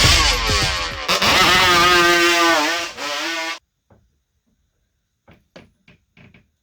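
Engine revving, its pitch sweeping up and down and then held, cut off abruptly about three and a half seconds in. After that, a few faint knocks.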